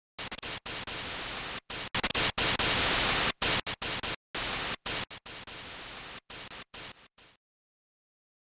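Bursts of TV-style white-noise static, chopped on and off abruptly like a glitch effect, loudest about two to three and a half seconds in, then weaker bursts stopping about seven seconds in.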